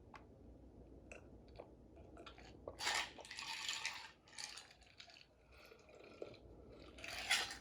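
Close-miked chewing of a mouthful of cheesy noodles. There are faint wet clicks at first, then louder bursts of mouth noise about three seconds in and again near the end.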